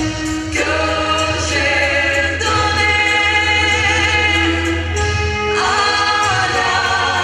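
Song music with a choir holding long chords over a steady low bass, the chord changing every two to three seconds.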